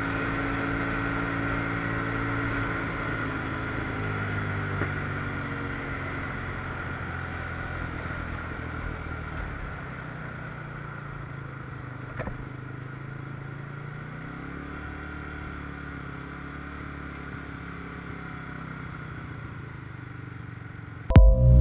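Sport motorcycle engine heard from the rider's camera, its pitch falling steadily as the bike rolls off the throttle and slows, then running at low revs with a slight rise partway through. Music comes in loudly right at the end.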